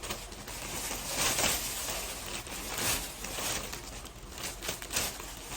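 Plastic packaging rustling and crinkling in irregular bursts as new rubber slippers are handled.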